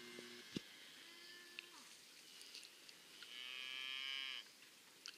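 Cattle mooing, faint: a low moo trailing off in the first moments, a short one at about a second in, and a louder, higher, drawn-out bawl lasting about a second from a little after three seconds in.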